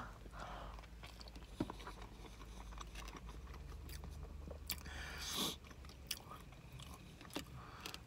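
Quiet chewing of a mouthful of soft hotcake, with faint wet mouth clicks and a short rush of noise about five seconds in.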